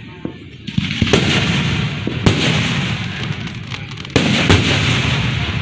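Aerial fireworks going off close by: a run of sharp bangs, the strongest about two seconds in, with dense crackling noise between them, and a sudden louder burst just after four seconds.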